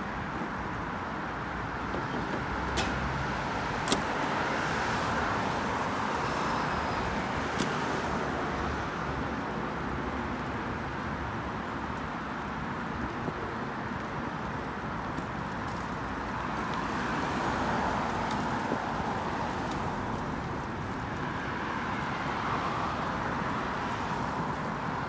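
Road traffic on a wet multi-lane road: the tyre hiss of passing cars swells and fades several times, over a low rumble of wind on the microphone. A few sharp clicks come in the first several seconds.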